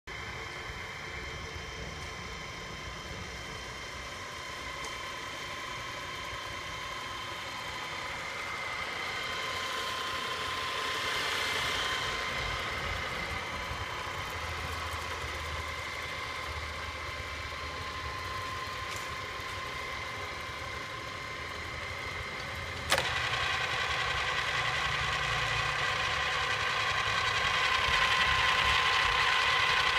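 Feeler drill press running under power, its electric motor and spindle drive giving a steady whine. A sharp click comes about three quarters of the way through, after which the machine sounds louder.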